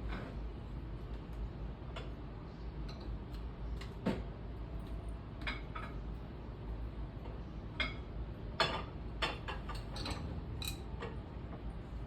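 Irregular light clicks and clinks of small hard objects being knocked together, a dozen or so scattered through, with a quick cluster near the end, over a steady low hum.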